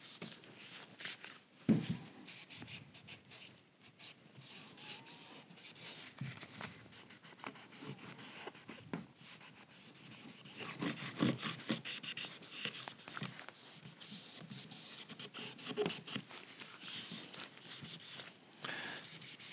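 A gloved hand wiping alcohol-diluted dye into a curly maple guitar neck with a small rag: soft, irregular rubbing strokes, with one sharp knock about two seconds in.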